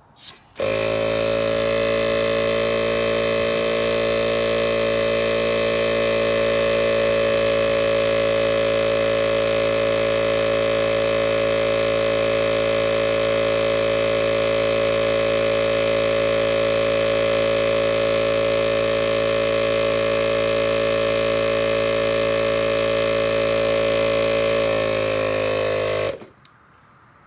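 ARB CKMP12 portable 12 V air compressor comes on about half a second in and runs with a steady electric hum, pumping up a tire toward 32 psi. Its pitch sags slightly just before it cuts off near the end.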